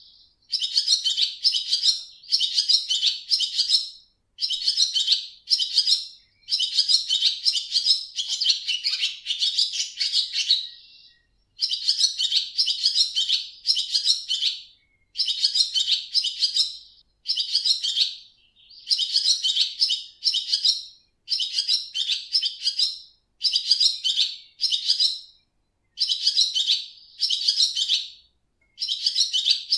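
Swallow twittering: rapid high chirps run together in bursts of a second or two, separated by short pauses.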